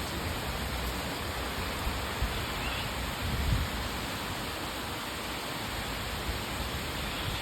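Steady rain, an even hiss with no let-up, with a couple of brief low bumps about two and three and a half seconds in.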